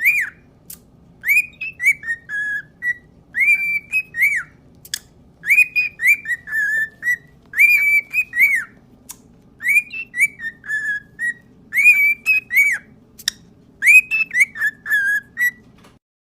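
Pet parrot whistling the same short phrase over and over, about every two seconds: a sharp rising note followed by a few lower, falling notes. It stops abruptly near the end.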